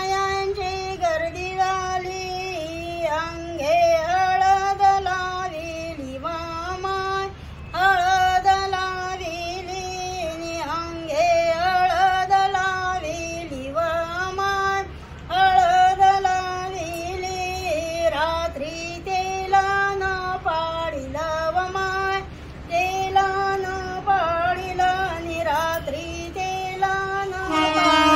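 Women singing a devotional folk song (bhajan) as one melody line, in short repeated phrases with brief breaks between them. Near the end a steady held tone with many overtones comes in.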